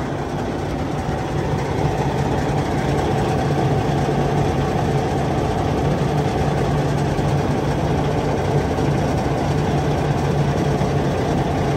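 Semi truck's diesel engine idling steadily.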